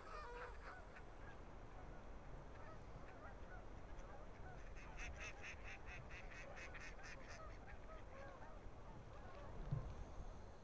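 A flock of Canada geese honking, many calls overlapping, with a quick run of evenly spaced honks around the middle.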